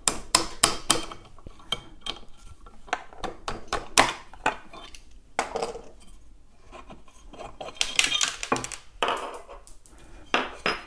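Metal electric unicycle pedal plates and their hardware clinking and clicking as they are handled and fitted to the pedal hanger: a quick run of clicks at first, one sharper knock about four seconds in, a quieter stretch, then more clinks near the end.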